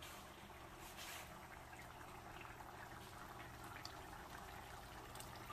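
A pot of curry with potatoes simmering faintly, a soft bubbling crackle, over a low steady hum.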